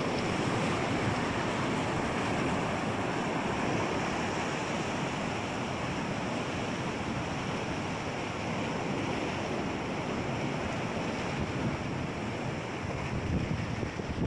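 Sea surf washing and breaking against rocks along a rocky shoreline, a steady rushing sound, with wind buffeting the microphone.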